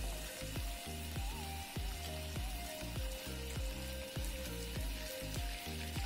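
Background music with a steady beat and deep bass hits that drop in pitch, over the sizzle of parrot fish shallow-frying in oil in a wok.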